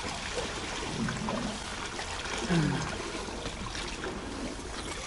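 Sea water washing and trickling against the rocks of a shore ledge in a steady wash, with two short low sounds about one and two and a half seconds in, the second the loudest.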